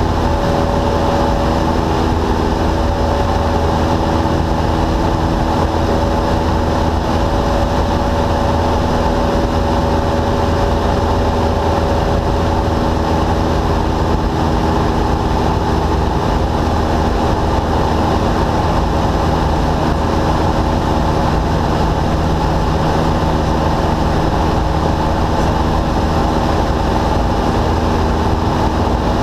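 Cockpit noise of a single-engine Cessna in flight: the piston engine and propeller running steadily at a constant power setting, a loud, even drone.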